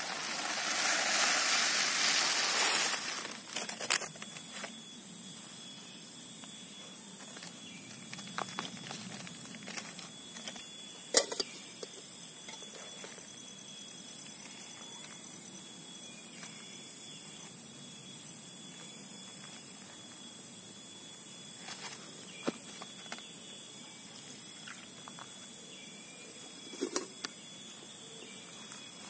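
Dry rice grains poured from a plastic bag into an upright bamboo tube, a hiss lasting about three seconds. After that come a few sharp clicks and faint taps from handling the tube, over a steady high-pitched background drone.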